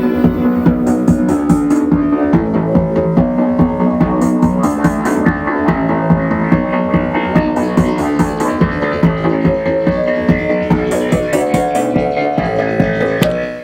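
Electronic dance track played live on a Roland TR-909 drum machine and synthesizers: a steady kick drum at about four beats a second under sustained synth chords, with hi-hats coming in and out. It stops suddenly at the end.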